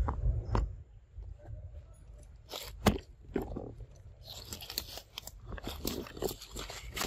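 Dry twigs, bark and leaves crunching and crackling in a quick irregular run of snaps, the loudest a single sharp crack about three seconds in.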